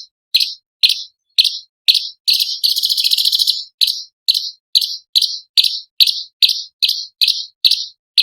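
Orange-bellied leafbird singing: a series of short, sharp high notes about two a second, broken a couple of seconds in by a rapid trill lasting about a second and a half.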